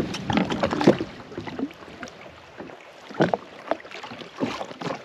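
Water splashing and slapping against the side of a drifting jet ski, in short irregular slaps.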